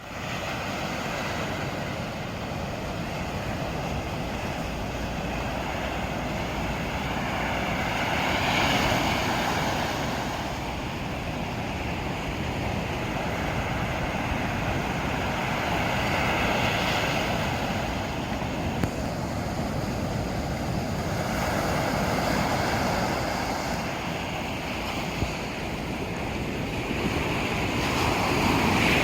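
Sea waves washing onto the shore: a steady rush of surf that swells louder each time a wave breaks, every several seconds.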